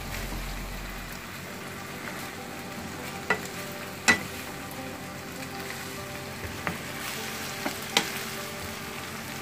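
Chow mein noodles with prawns and vegetables sizzling in a frying pan as they are stir-fried with a wooden spatula. The spatula knocks sharply against the pan several times.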